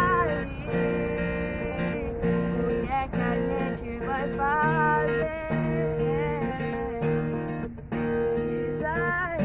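A teenage girl singing a song over acoustic guitar accompaniment: steady strummed chords beneath a voice line that slides and bends between notes.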